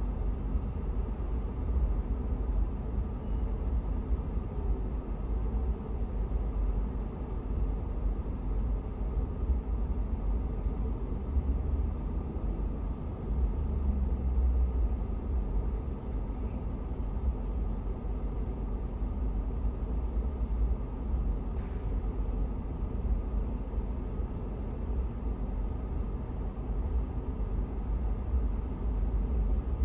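Steady low rumble inside a car stopped at a traffic light.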